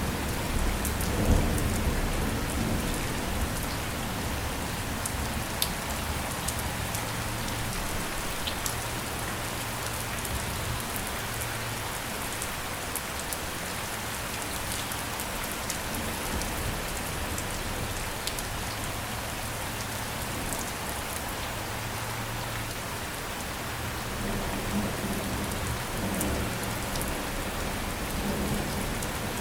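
Steady rain falling, with fine drop ticks throughout. Low rumbles of thunder come near the start and again near the end.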